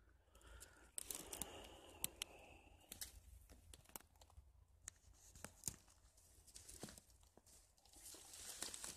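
Faint crackling and rustling of dry undergrowth, with scattered sharp clicks from the phone being handled. The rustling grows near the end.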